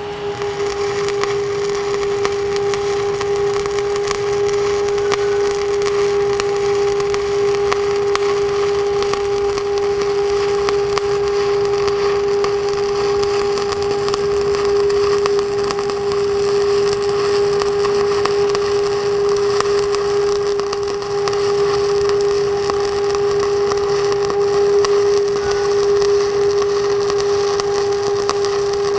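Stick (SMAW) welding arc crackling steadily as an electrode runs a cap bead on steel plate, with a steady pitched hum underneath.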